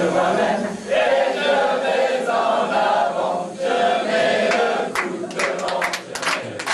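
A group of students singing and chanting together in unison. About five seconds in, sharp rhythmic clapping joins, a few claps a second.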